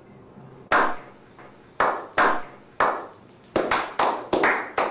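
Slow clap by a small group of people: single hand claps spaced about a second apart that come faster and faster from the middle onward.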